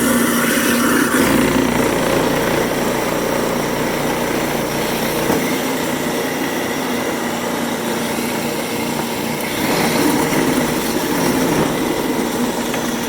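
Whizbang apple grinder, a garbage-disposal-style grinder driven by an electric motor, running with a steady loud noise as it grinds apples for cider. It grows a little louder about ten seconds in.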